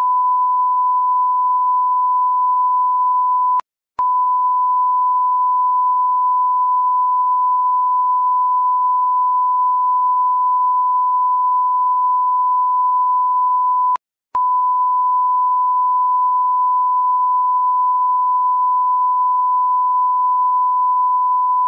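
Steady test tone of the kind played with colour bars: one unchanging pure pitch. It drops out briefly twice, with a small click, about four seconds in and again about fourteen seconds in.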